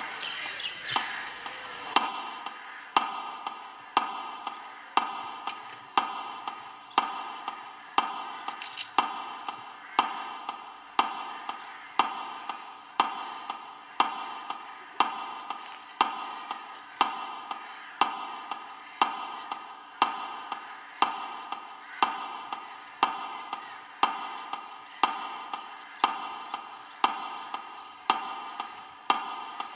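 Metronome ticking steadily about once a second over a loudspeaker, marking a minute of silence.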